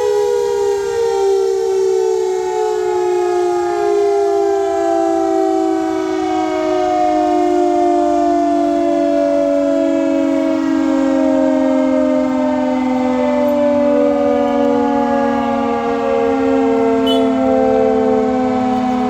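Civil-defence siren sounding an emergency alert for a drill: one long, loud wail whose pitch falls slowly and steadily.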